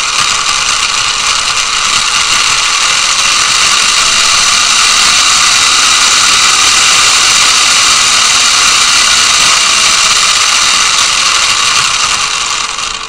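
Toy RC car's small electric drive motor and gearing running in reverse under PWM control, a loud, steady high-pitched buzz that winds down and stops near the end.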